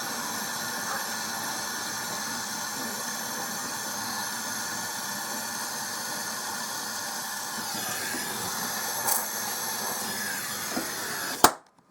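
Gas brazing torch flame hissing steadily, then cut off suddenly with a sharp click near the end.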